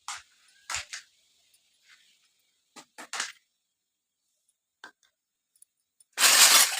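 Small toy kitchen pieces being handled during unboxing: a few light clicks and taps, then a louder, noisy handling sound near the end.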